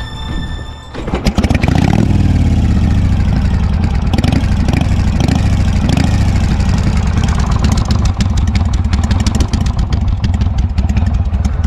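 Harley-Davidson V-twin motorcycle engine starting about a second in, revved up several times, then running steadily.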